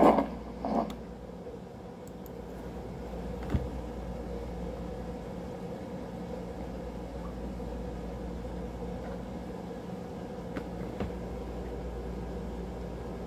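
A steady low electrical or fan hum of room tone, with two short breathy exhales right at the start and a single sharp click about three and a half seconds in.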